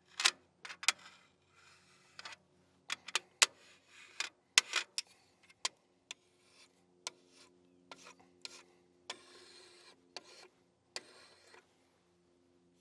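A level's edge being rubbed over a vinyl decal on a painted metal panel to press it flat, with stretches of scraping and scattered sharp clicks and taps.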